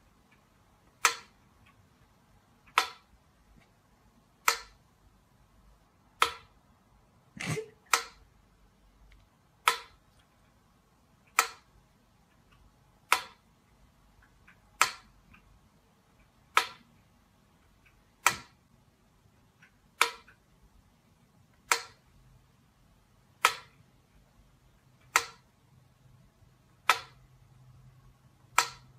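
Mechanical pyramid metronome ticking slowly and evenly, one sharp tick about every 1.7 seconds, with a soft thump about seven seconds in.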